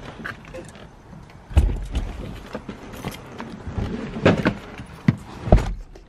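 Rustling and handling noise with several dull thumps as someone climbs into a car's driver's seat, the loudest thump about a second and a half in and three more near the end.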